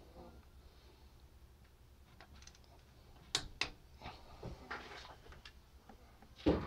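Hand tools being handled during head-bolt torquing on a Ford 3.0 L V6: two sharp clicks about three and a half seconds in, scattered softer clicks, and a louder knock near the end, over a low hum.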